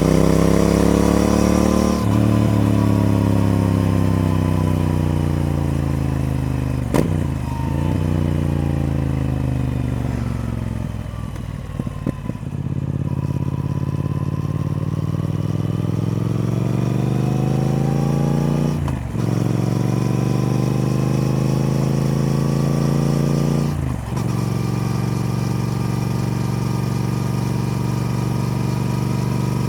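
Triumph Speed Twin parallel-twin engine under way. It winds down on the overrun for about twelve seconds, with a few crackles near the bottom, then pulls up through the revs. There are two gear changes, each a short break followed by a drop in pitch, and it then runs steadily at a constant engine speed.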